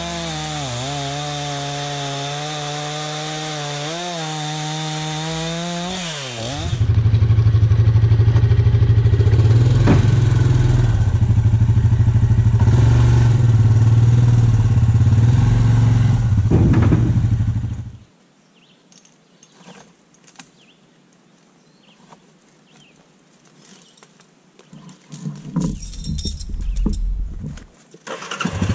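Chainsaw at full throttle cutting through a log, its pitch wavering with the load. About six seconds in it gives way to a louder, steady low hum of a Yamaha Grizzly ATV engine, which stops abruptly about two-thirds of the way through. A few clatters follow, and the ATV engine runs again at the very end.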